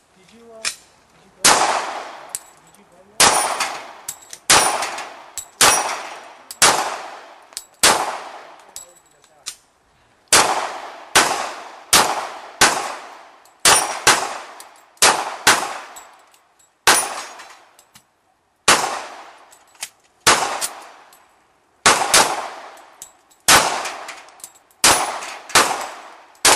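Gunfire at a steel plate shooting match: some thirty shots from two shooters racing each other, coming irregularly about once a second with a brief pause near the middle. Each report has a ringing tail as the rounds strike the steel plates.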